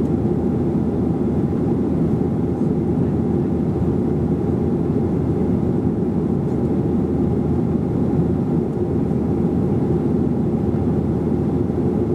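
Steady cabin noise of a Boeing 737-800 in its climb, heard from inside the cabin behind the wing: CFM56 jet engines and rushing airflow make a low, even rumble.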